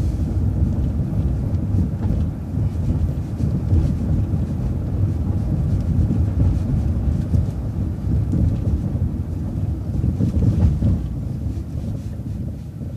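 Steady low rumble of a city transit bus driving, engine and road noise heard from inside the bus, easing off near the end.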